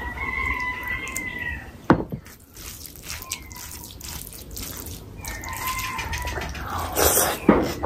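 Close-miked wet eating sounds: a slurp of raita from a small bowl with a thin whistling tone, a sharp click about two seconds in, then a hand squelching through curry-soaked biryani rice and, near the end, louder wet bites and chewing.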